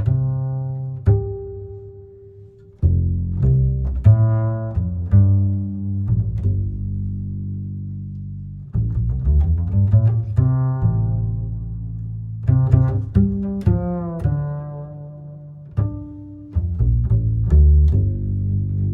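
Instrumental background music with deep bass notes and pizzicato and bowed string sounds over a beat.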